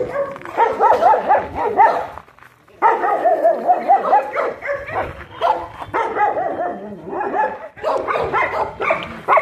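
Dogs barking and yipping in quick runs of short, high calls, several a second, with a brief pause about two and a half seconds in.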